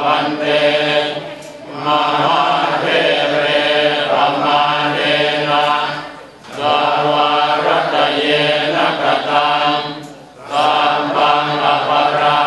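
Group of Theravada monks chanting in Pali in unison on a low, steady pitch, with short pauses for breath three times.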